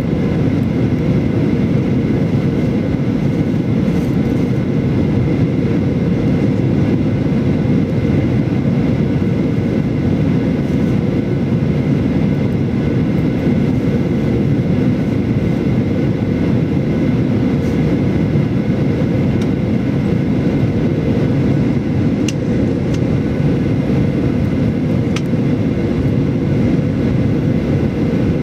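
Steady cabin noise inside a Boeing 737-800 airliner: a constant drone of the engines and rushing air, with a faint steady high tone above it.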